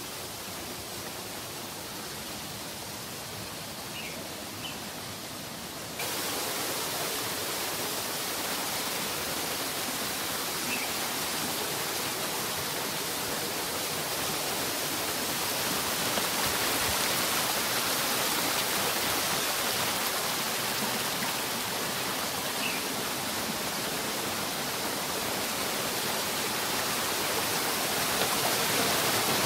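Steady rushing of a stream, an even hiss that gets louder about six seconds in, with a few faint short high chirps.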